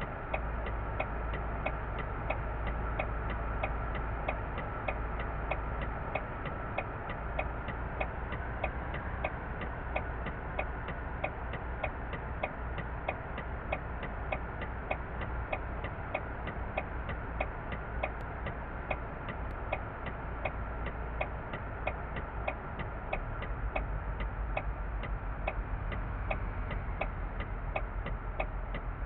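Steady mechanical ticking, about three ticks a second and very regular, over a low steady rumble.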